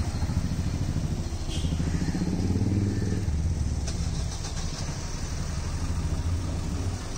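Street traffic: a motor vehicle engine running close by, swelling about two to three seconds in.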